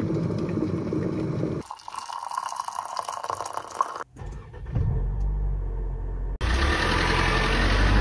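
A glass electric kettle at a rolling boil, then hot water poured from it into a ceramic mug in a splashing stream. After a cut, a car's engine runs with a low steady rumble, and a louder, hissing rush takes over shortly before the end.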